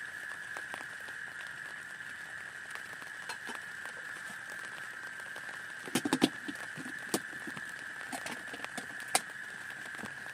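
Rain falling steadily, with a constant high hiss and scattered sharp taps, a quick cluster of them about six seconds in.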